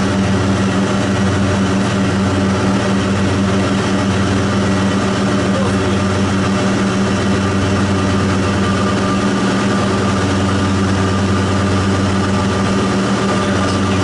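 Steady drone of a light aircraft's piston engine and propeller heard inside the cabin, a constant low hum with no change in pitch.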